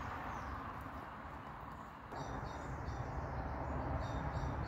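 Steady rumble of traffic on a nearby dual carriageway, with a small bird chirping repeatedly from about two seconds in: short high notes in quick groups.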